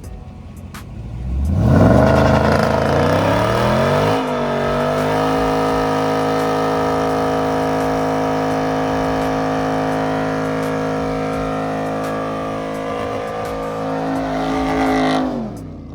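Car engine revved up hard, held at steady high revs for about ten seconds, then let off near the end.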